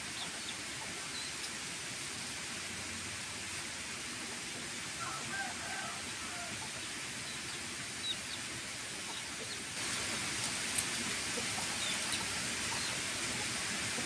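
Chickens clucking faintly, a few short clucks about five seconds in, over a steady background hiss that grows slightly louder about ten seconds in.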